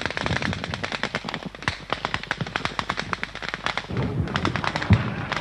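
Rapid small-arms gunfire in a battle, many sharp cracks a second, largely incoming enemy fire. About four seconds in a low rumble joins it, with one loud thump near the end.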